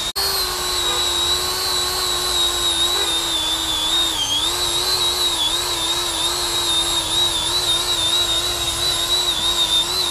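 Angle grinder with an abrasive disc grinding spray-painted graffiti off a concrete wall: a steady high whine that wavers and dips slightly in pitch several times. It cuts out for an instant just after the start.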